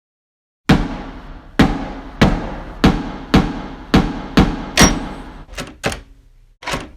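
A series of about eleven sharp knocking strikes, roughly two a second, each with a short ringing decay. It starts abruptly after a moment of silence, and the last few strikes are lighter and more widely spaced.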